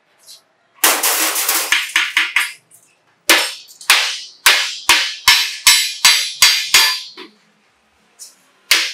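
A galvanized sheet-steel bucket body being hammered over a steel bar, sharp ringing metal blows. A quick run of blows about a second in, then a steady beat of about two a second for several seconds, a pause, and the blows start again near the end.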